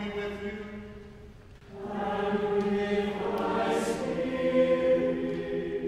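Cathedral choir singing a response from an Anglican setting of the preces and responses. One sung phrase dies away, then a new, fuller chord enters about two seconds in and is held.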